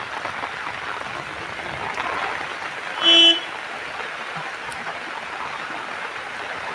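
Steady rain hissing down on a flooded street, with one short vehicle horn toot about three seconds in.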